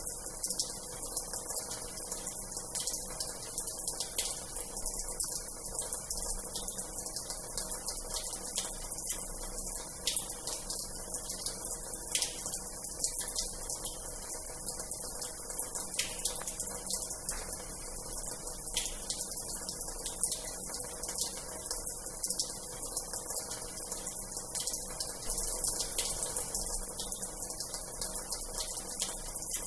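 Water running steadily from the tap of an old washhouse into its basin, a continuous hissing splash with many small, sharp splashes over it.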